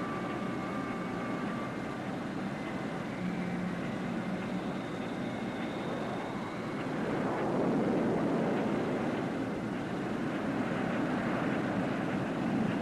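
McDonnell F2H Banshee jet fighters' twin turbojet engines running at power on a carrier deck during launches: a steady roar with high whistling whines. The roar swells about seven seconds in, and a whine rises in pitch near the end.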